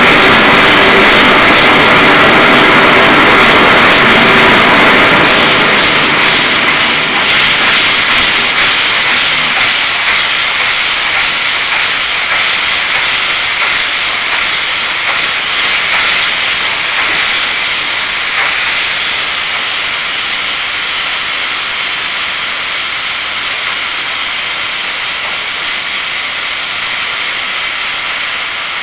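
Steam hissing from the jets of a homemade Hero's steam engine (aeolipile), with a lower rumble from the torch flame under it for the first several seconds. The rumble drops away about seven seconds in, and the hiss then slowly fades.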